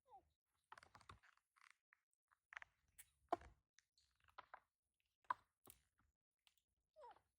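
Faint scattered clicks and soft rustling, with a short falling squeak from a baby monkey at the start and another near the end.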